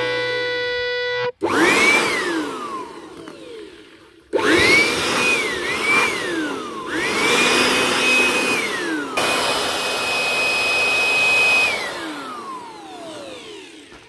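Electric air blower-vacuum's motor switched on and off several times: a high whine that rises quickly as it spins up, holds steady, then falls slowly away as it winds down.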